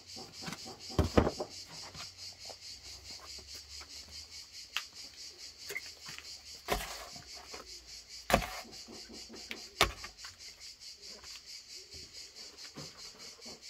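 Insects buzz steadily, pulsing about four times a second, with a few sharp knocks and cracks from the crusty baked bread loaves being handled, the loudest about a second in and again around eight and a half and ten seconds.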